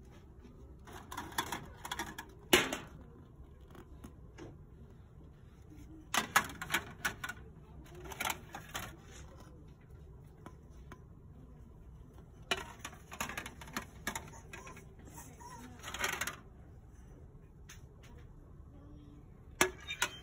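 Irregular bursts of light clicking and clattering, as of small hard objects being handled, in about half a dozen clusters with quiet between them. One sharp click, early in the first cluster, is the loudest.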